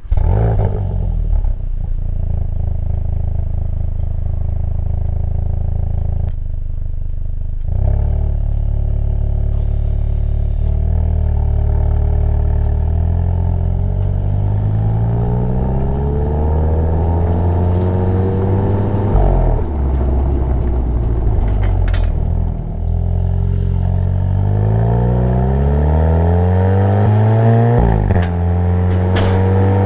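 Seat Leon Cupra 290's 2.0 TSI turbo four-cylinder on its stock exhaust, accelerating through the gears. The revs climb and drop back again and again as it shifts up.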